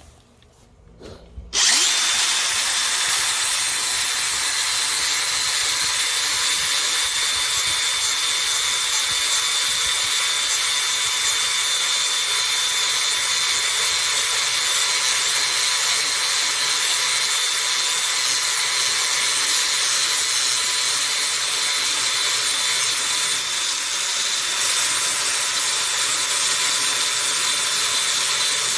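Angle grinder with a worn flap disc grinding the cutting edge of a steel lawn mower blade: a loud, steady grinding with a high whine, starting about a second and a half in.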